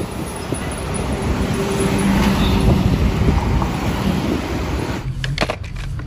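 Road traffic: motor vehicles, a motorcycle among them, driving past on a street. The traffic sound cuts off about five seconds in, followed by a few sharp clicks.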